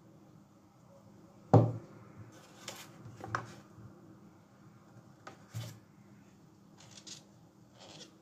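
Seasoning containers handled on a wooden tabletop: a sharp knock about a second and a half in as a jar is set down, short paper crinkles from a paper spice packet, and a second, softer knock about five and a half seconds in.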